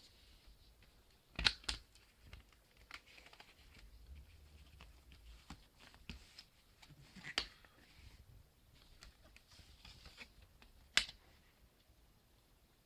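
Handling of a CD and its plastic packaging: soft rustling with a few sharp clicks and knocks, the loudest about a second and a half in, around seven seconds in and near eleven seconds.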